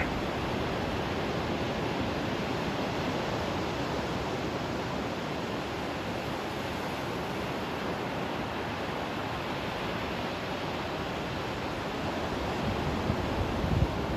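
Surf breaking on a sandy beach: a steady wash of waves, with a few gusts of wind buffeting the microphone near the end.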